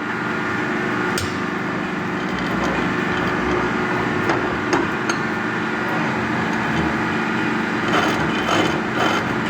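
Welding work on metal: a steady machine hum with a crackly hiss, and a few sharp knocks scattered through, about a second in, around the middle and near the end.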